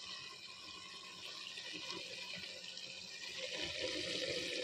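Clam sukka sizzling in a hot clay cooking pot: a steady hiss that grows a little louder after about three seconds.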